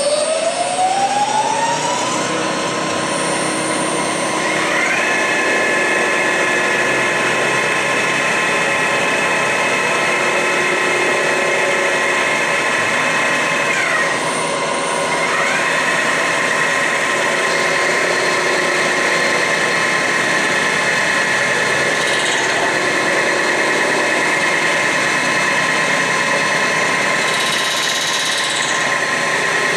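Milling machine spinning up its large fly-cutter head and taking a first decking pass across the deck of a cast-iron Ford Model A engine block, to show how true the deck surface is. A steady machine whine rises in pitch over the first two seconds. A second, higher whine joins about five seconds in, drops out briefly around the middle, then carries on.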